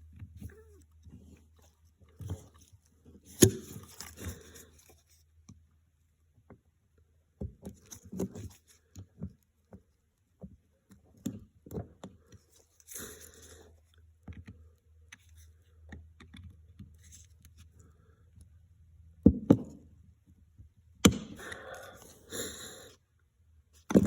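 Small metal carburetor parts and hand tools handled on a workbench during disassembly: scattered clicks and clinks, short scrapes, and a few sharper knocks.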